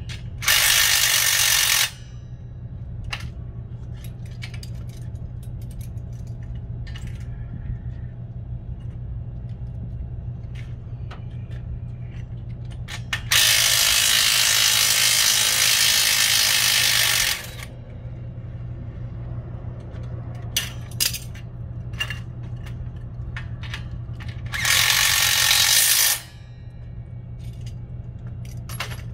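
A hand-held power tool running in three bursts, a short one right at the start, a longer one of about four seconds in the middle and a short one near the end, as it drives fasteners on a shopping cart. Short metallic clicks and knocks fall between the bursts, over a steady low hum.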